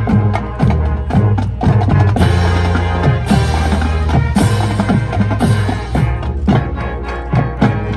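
High school marching band playing: a drumline keeps a steady beat under held brass chords. Cymbal crashes come about once a second through the middle.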